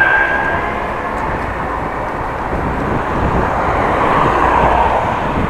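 Steady rushing wind and traffic noise, with a short high whine right at the start.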